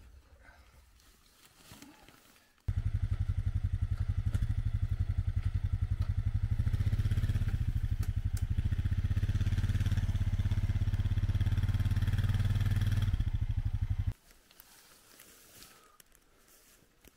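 A motor running steadily for about eleven seconds, with a fast pulsing note; it starts and cuts off abruptly.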